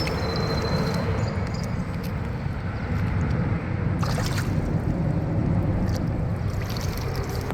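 Steady rush of river water around a kayak with wind rumble on the microphone, and a few light knocks scattered through.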